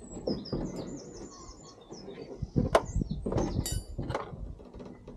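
A few knocks and a ringing clank as a car door is heaved into place on its hinges, the loudest knock a little under three seconds in. Small birds chirp in the background.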